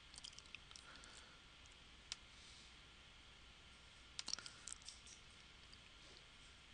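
Faint clicks of a computer mouse over near silence: a few scattered clicks at the start, a single click about two seconds in, and a quick cluster of clicks about four seconds in.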